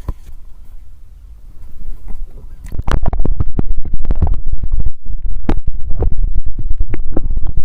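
Loud low rumbling with dense crackling and scraping right on the microphone, starting about three seconds in after a quieter opening: noise from something rubbing on or buffeting the mic itself.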